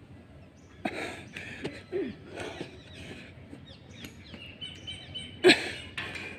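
A person doing burpees on a rubber playground surface: hard breaths and irregular thuds of hands and feet landing, the loudest thud about five and a half seconds in. Birds chirp faintly in the background.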